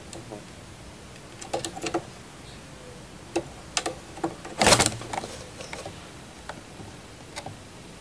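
A white barbary dove (puter) moving about in a bamboo cage: scattered light clicks and taps. A louder brief rustling flurry comes just before halfway, as the bird climbs up onto the perch.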